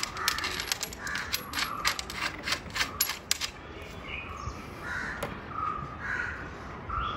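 Quick metal clicks of a wrench tightening the nuts on a bicycle fork's axle bolt over the first few seconds, with a bird cawing repeatedly in the background.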